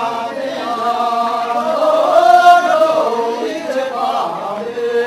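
A group of voices singing a traditional dance song together in long, held notes, swelling loudest about halfway through.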